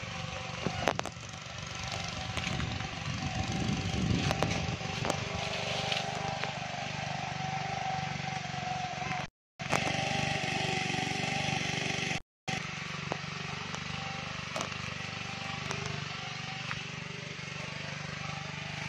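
Outdoor field background noise: a steady hiss and hum with a few faint clicks, broken twice by brief dead-silent gaps where video clips are joined.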